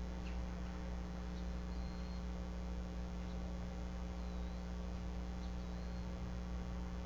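Steady electrical mains hum on a livecam microphone, with a few faint, short, high chirps that come and go.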